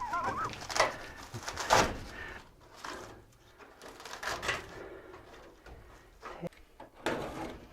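Flue pipe being worked loose by hand: a brief wavering squeal at the start, then a few separate scrapes and knocks.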